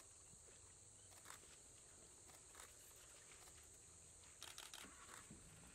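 Near silence, with a faint steady high-pitched insect drone. A few soft clicks come about a second in and at two and a half seconds, with a small cluster near the end.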